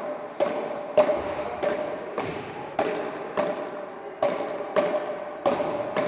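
Frescobol rally: a small ball struck back and forth between two wooden paddles, a sharp knock about three times every two seconds, each hit ringing on in the echo of a large sports hall.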